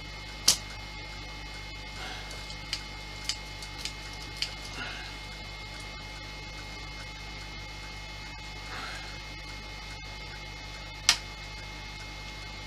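About six sharp clicks and taps of small plastic model-kit parts being handled and fitted, the loudest about half a second in and another near the end. A steady electrical hum runs underneath.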